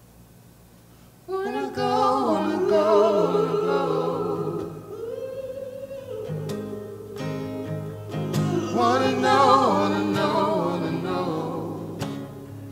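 Background music: a song with a solo singer and instruments, quiet for about the first second, then the voice comes in with long, wavering held notes.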